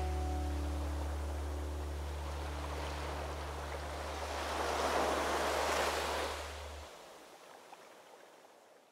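Sea waves washing in, one wave swelling about five seconds in before the sound fades out near the end, under a held low note left over from the music, which cuts off about seven seconds in.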